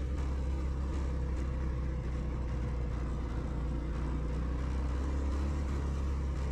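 Motorcycle engine running steadily with a low, even hum.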